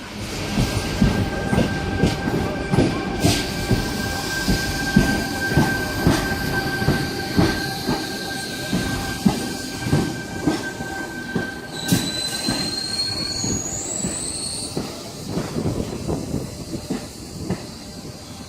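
Tangara electric train running through the platform: wheels clunk over rail joints at an uneven beat under a steady high whine, with a brief rising high-pitched squeal about twelve seconds in.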